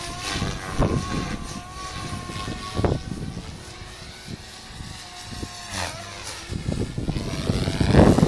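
SAB Goblin 380 electric RC helicopter in flight: a steady high whine from the motor and rotor head, with rotor noise rising and falling in pitch as it manoeuvres, growing louder near the end.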